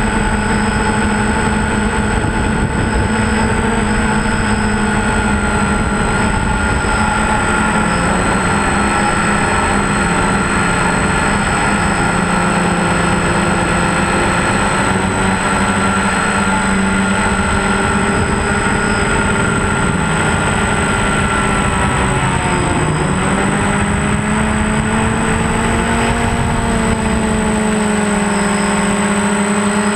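Electric motors and propellers of a multirotor drone, heard through its onboard camera: a loud, steady buzzing whine made of several pitches, over a rush of wind. A little past two-thirds of the way through, the pitch dips and then rises again as the motors change speed.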